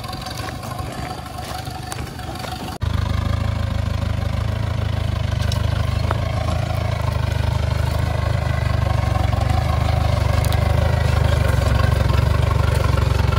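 Mahindra Bolero 4x4 pickup's engine running steadily under load as it drags a tree stump on a chain through loose dirt. About three seconds in, the sound cuts and comes back louder.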